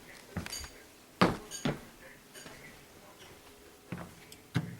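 Irregular knocks and clicks, about seven in all, the loudest about a second in; one early knock has a brief light metallic ring.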